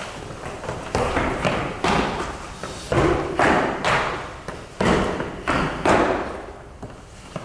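Feet stamping and stepping on a wooden floor during a kung fu form: a string of about eight irregular thuds, quieter near the end.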